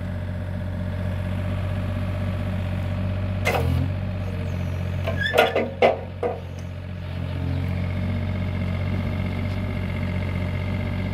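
Takeuchi TB28FR mini excavator's diesel engine running steadily while the arm is worked, with a few sharp knocks from about three and a half to six seconds in. A faint steady high whine joins near the middle.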